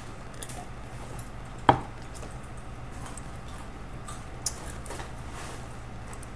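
A plastic cup set down on a desk makes one sharp knock about a second and a half in. A lighter tap follows a few seconds later, with a few faint clicks, over a steady low hum.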